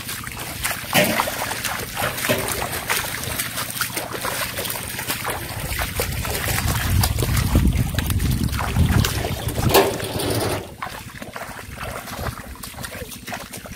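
Bare feet wading and splashing through shallow water among grass, with repeated splashes and sloshing as a catfish is grabbed by hand. A low wind rumble on the microphone runs through the middle and stops about ten and a half seconds in.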